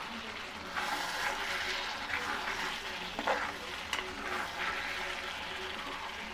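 Chicken pieces sizzling in a thick masala in a pan while being stirred and scraped with a metal spatula. A sharp click comes about four seconds in.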